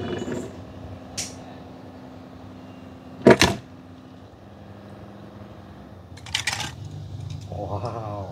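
A small die-cast toy tractor dropping into a plastic tub of water with one loud, short splash about three seconds in, followed later by brief clicks from handling the toys.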